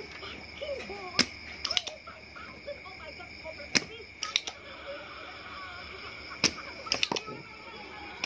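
Scattered sharp clicks and taps, about seven in all at irregular spacing, from handling a TV circuit board and soldering tools, over a faint steady high-pitched tone.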